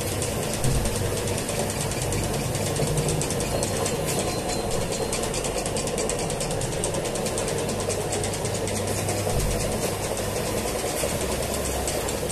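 Commercial bowl dough mixer running steadily, its hook kneading a large batch of bread dough, with a fast, even mechanical ticking.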